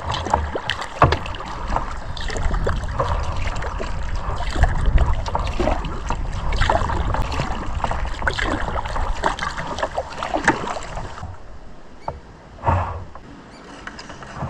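Kayak paddling: paddle strokes dipping and splashing in the water over a low rumble. The sound drops off and grows quieter about eleven seconds in, with one short splash after that.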